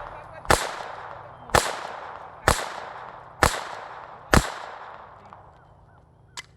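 Five shots from a GSG Firefly .22 LR pistol, fired about one a second, each followed by a long fading echo. A single faint sharp tick comes near the end.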